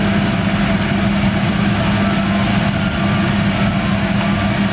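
Steady mechanical hum with a constant low drone that does not change.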